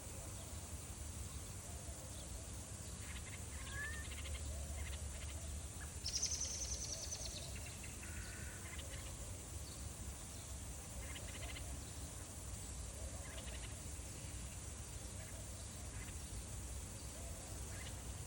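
Small birds chirping and calling here and there, with one louder, high rapid trill lasting about a second and a half about six seconds in, over a steady low rumble.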